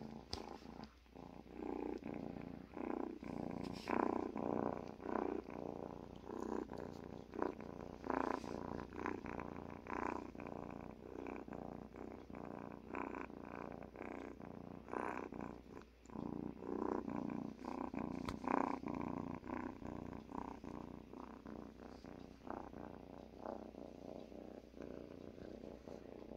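Cat purring close to the microphone, a continuous buzz that swells and fades in uneven pulses with its breathing. Scattered small clicks and rustles come from the cat moving about on the person.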